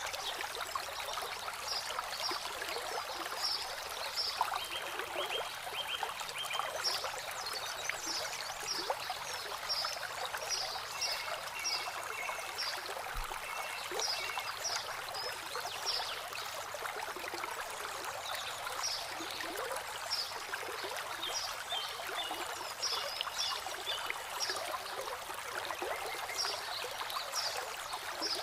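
Water trickling and splashing steadily over rocks in a small landscaped stream, with short high chirps scattered throughout.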